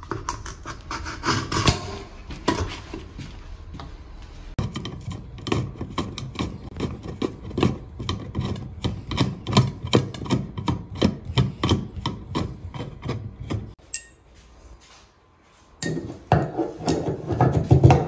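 Chrome escutcheon plate of a shower valve being handled and set against the wall, then a hand screwdriver driving the plate's long mounting screw: a fast run of scraping, rasping clicks that stops abruptly. After a brief pause, metal clinks and clatter as the trim is handled again.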